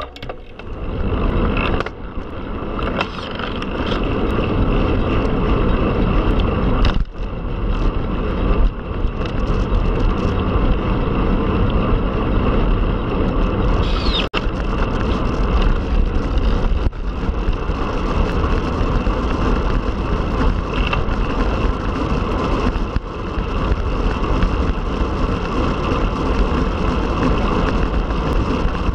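Steady loud rush of wind over the microphone, with tyre and road noise, from a Specialized Tarmac Sport road bike ridden at speed.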